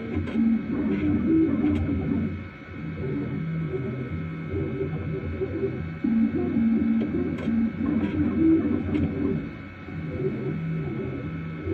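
3D printer running, its motors humming at pitches that jump every fraction of a second as they move, over a steady high whine.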